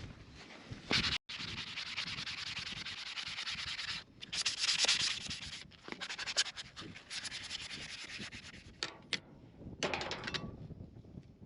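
Aerosol can of PB Blaster penetrating oil spraying onto a seized combine part, a steady hiss in several long stretches that stop and start abruptly, with a few short clicks near the end.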